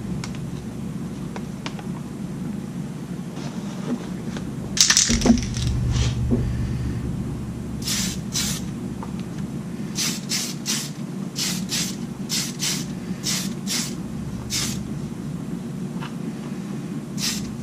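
Aerosol spray can of clear lacquer giving about a dozen short hisses, each under half a second, mostly in the second half, over the steady hum of a fume extraction fan. A brief clatter of plastic parts comes about five seconds in.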